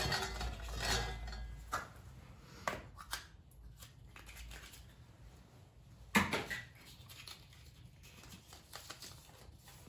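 A small plastic draw capsule is handled, twisted open and its paper slip unrolled: low rustling and handling noise with a few sharp clicks, the loudest about six seconds in.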